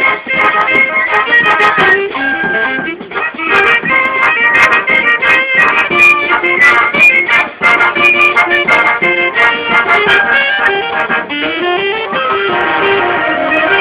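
Wind band playing live: flutes and alto saxophones carry the melody over a bass drum, with sharp percussion strikes throughout.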